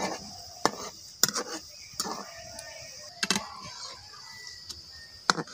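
A metal spatula knocks and scrapes against a metal wok, giving about six sharp clinks at uneven intervals, over the steady hiss of batter frying in hot oil.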